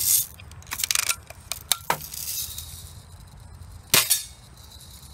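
Daisy Red Ryder spring-air lever-action BB gun being cocked, the lever clacking and clicking through its stroke in the first two seconds. It is then fired once about four seconds in with a sharp snap and a brief ring.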